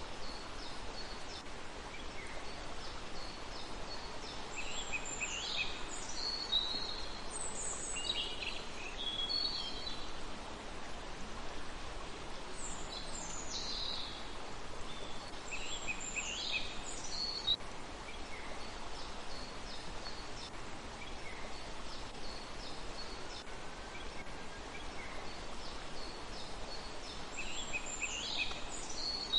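Songbirds calling outdoors: groups of high chirps that sweep downward, mixed with short high ticking notes, coming in clusters every few seconds over a steady background hiss.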